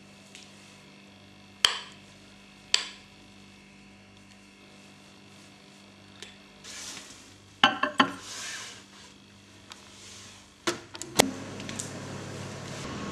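Scattered knocks and clatter of kitchen cups and utensils being handled, with short rustles. Near the end a steady low hum sets in: a microwave oven starting to run.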